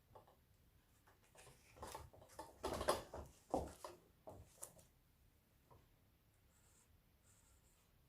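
Metallic pen scratching and rubbing against a mesh wig cap as a line is traced, a cluster of short strokes in the middle few seconds, with faint room tone either side.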